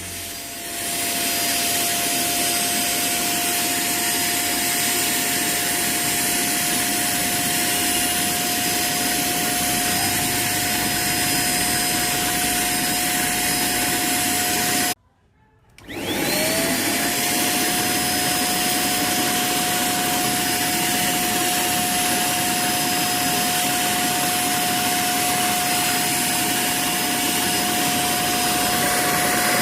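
Vacuum cleaner motor running with a steady whine. It cuts off abruptly about halfway through. After a second or so of quiet it is switched on again, the whine rising in pitch as the motor spins back up to speed.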